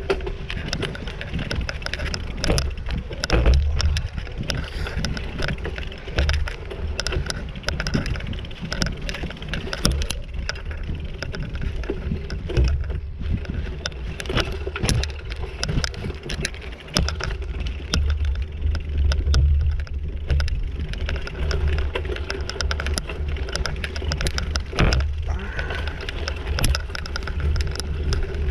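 Bicycle rolling fast down a rough dirt trail: tyre noise and the frame clattering, with frequent knocks over bumps and roots, over a heavy low rumble.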